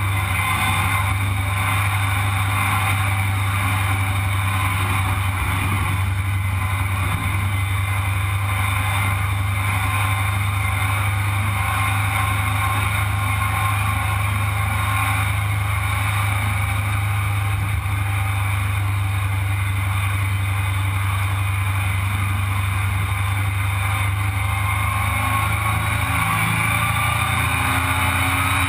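Sandrail engine running steadily as the buggy cruises, with wind noise over the open frame. The engine note shifts slightly near the end.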